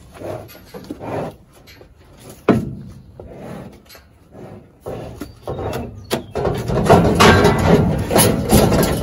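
Heifer shifting in a wooden cattle chute, her body and hooves knocking against the boards. There is a sharp knock about two and a half seconds in and a louder, longer clatter from about six seconds in as she pushes forward through it.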